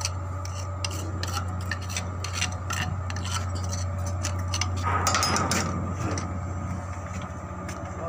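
Metal clinking and scraping, short sharp knocks of steel on steel, with a louder scrape about five seconds in, over a steady engine hum.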